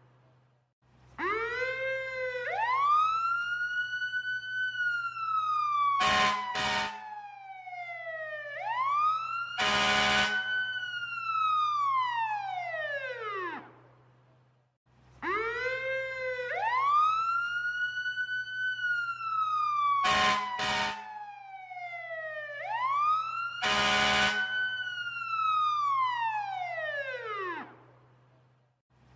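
Fire truck siren sound effect: a mechanical wail that winds up quickly and slowly slides back down, twice, each cycle broken by horn blasts, two short ones close together and then a longer one. A low steady hum runs underneath.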